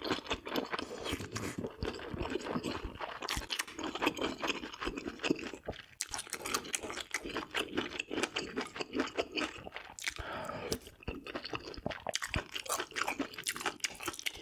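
A person chewing food close to the microphone, with a continuous run of wet, crunchy clicks and smacks.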